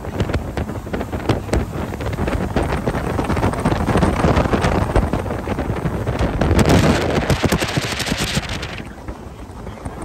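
Wind buffeting the microphone over the steady drone of a boat running fast on four Suzuki outboard motors, with its wake hissing. The rush grows louder and brighter from about four seconds in, then drops off suddenly near the end.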